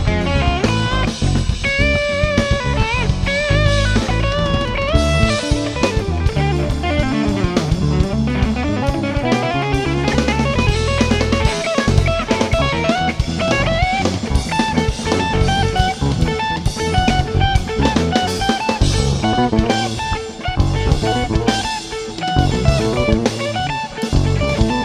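Live instrumental band playing: electric guitar picking out melodic lines with bent notes over a busy drum kit with cymbal crashes.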